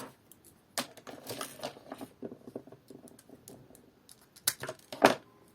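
Close handling noises: short rustles and scattered sharp clicks of bouquet pieces being handled and pushed into place, with two louder clicks near the end.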